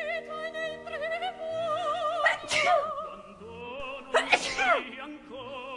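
Two sudden sneezes, one a little over two seconds in and a louder one about four seconds in, over operatic singing with a wide vibrato.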